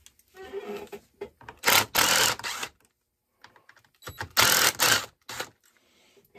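Cordless drill run in two short bursts of about a second each, with a brief third burst just after the second.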